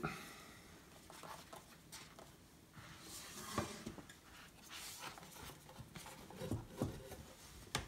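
Faint handling sounds of an Apple Magic Keyboard for iPad: soft rustles, light knocks and two dull thuds, with a sharp click near the end.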